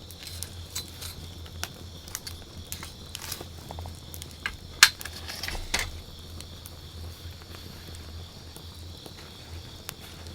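Wood campfire crackling with scattered small pops, and one loud sharp pop about five seconds in followed by another a second later.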